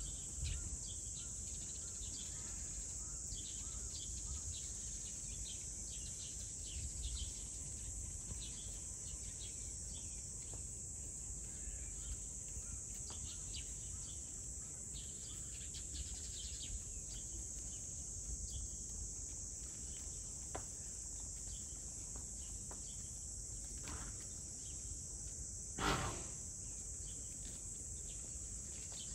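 Steady high-pitched insect chorus with scattered short bird chirps over a low outdoor rumble. One brief louder sound stands out near the end.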